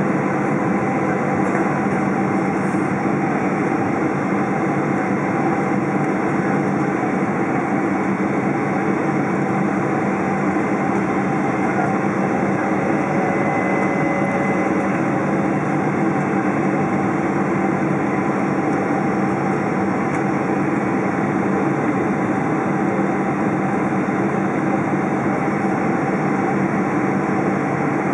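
Cabin noise inside a Boeing 777-200 descending on approach: steady turbofan engine and airflow noise with a few steady engine tones. A faint tone glides up and back down about halfway through.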